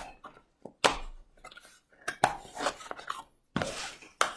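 Hands unboxing a digital alarm clock: a few sharp clicks and knocks of handled packaging and plastic, with a brief rustle shortly before the last one.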